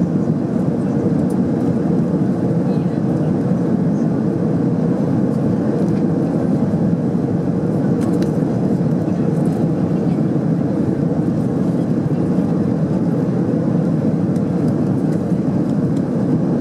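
Steady in-flight cabin noise of an Airbus A330-200: an even, deep rush of airflow and jet engine noise with a faint steady hum.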